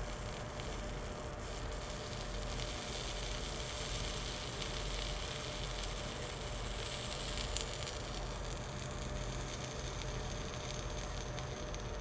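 Soft hiss and sizzle of flux and solder melting under a soldering iron on a steel spring, swelling for a few seconds in the middle, over a steady low shop hum.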